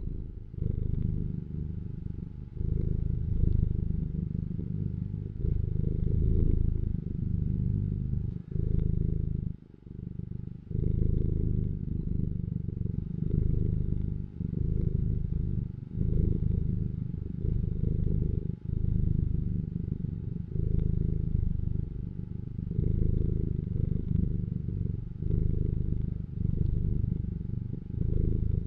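Tabby cat purring close to the microphone: a low rumble in swells of two to three seconds, each broken by a brief pause.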